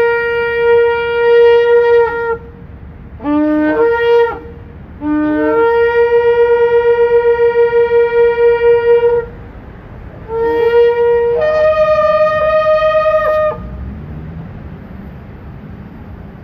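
Ram's-horn shofar blown in a series of blasts: a long held note, two short notes that jump up from a lower start, a long note with a fast wavering, then a last note that breaks upward to a higher pitch and stops abruptly. The blasts are loud.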